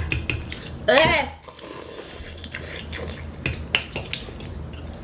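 Metal forks clicking and scraping against bowls as noodles are eaten, with a short sliding vocal sound about a second in.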